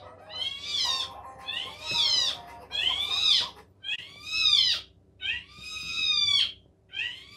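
A domestic cat meowing over and over, about six high-pitched meows roughly a second apart, each rising and then falling in pitch.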